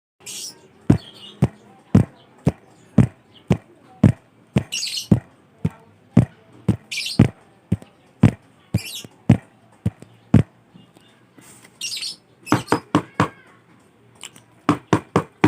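Footsteps walking at a steady pace, about two steps a second, for around ten seconds. The steps stop, then come two quick bouts of knocking on a door, four or five knocks each, the second near the end.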